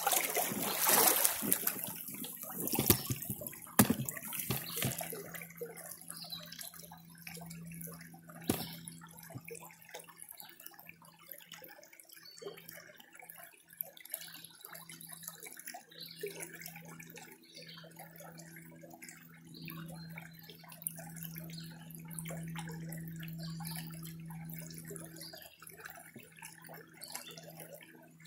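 Creek water splashing and sloshing as a plastic gold pan is dipped and swirled in the current. It is loudest with sharp splashes over the first few seconds, then settles into a quieter swishing trickle.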